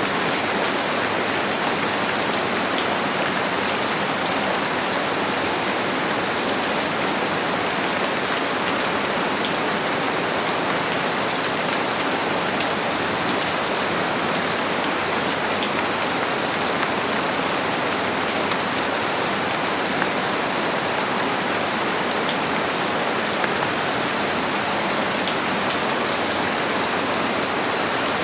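Steady rain falling, an even hiss of many drops hitting a surface, with fine scattered drop ticks and no thunder.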